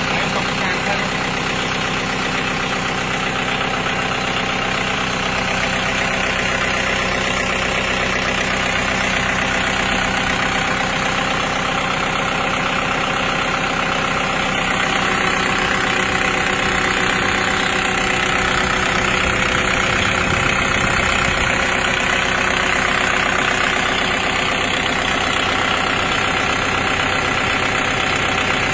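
Kubota M6040 tractor's diesel engine idling steadily.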